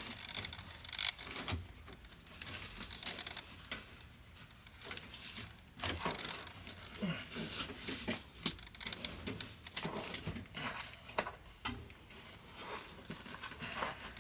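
A leather car-seat cover and its cushion being handled and worked into place: irregular rubbing and rustling with scattered small knocks and clicks.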